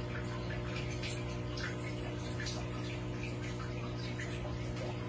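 Aquarium filter running: water trickling and splashing steadily into the tank over a constant low hum.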